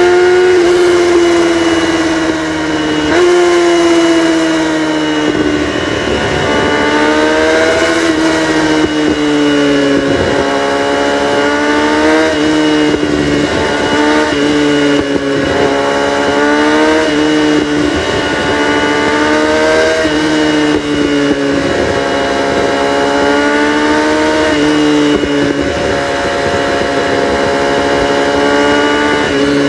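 Kawasaki ZX-6R's inline-four engine running loud through a catalytic-converter-deleted exhaust. Its pitch slides slowly down and then jumps back up every few seconds.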